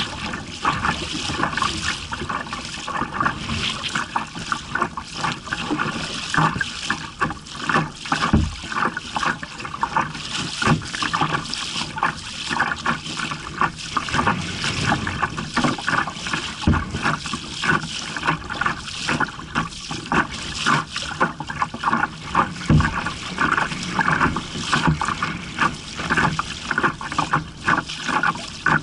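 Choppy water slapping and splashing against a plastic kayak hull with dripping and paddle splashes as the kayak is paddled through small waves. Three dull, deep thumps stand out: about eight seconds in, about sixteen seconds in and about twenty-three seconds in.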